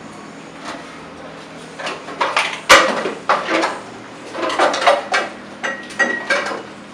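Cups and dishes clattering and knocking against each other and a stainless steel sink as they are handled, with one sharp knock a little before the middle and a brief ringing clink near the end.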